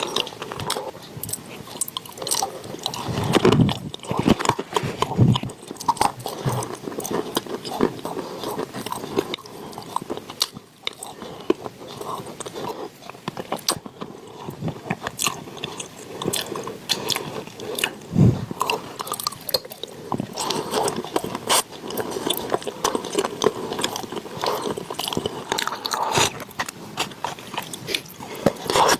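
Close-miked chewing and crunching of wet chalk: dense, irregular crisp crunches and wet mouth sounds.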